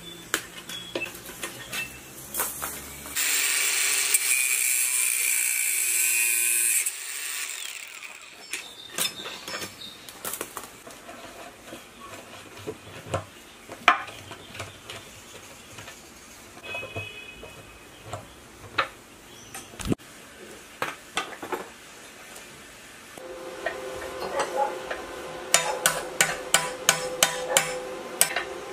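Hand-tool work on an old diesel engine's metal tank: a steady hiss for about four seconds near the start, then scattered clicks and taps. In the last few seconds a hammer strikes a steel rod held against the tank about three or four times a second, each blow ringing briefly.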